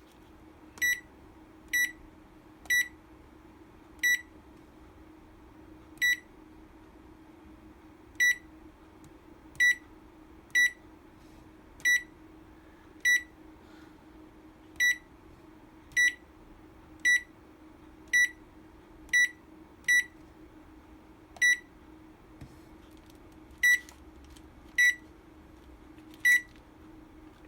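Touch-screen control panel of a GE appliance beeping as its keys are tested: about twenty short, identical high beeps at an uneven pace, roughly one a second, over a faint steady hum. The beeps are the key-press tones of a newly replaced touch screen that is responding.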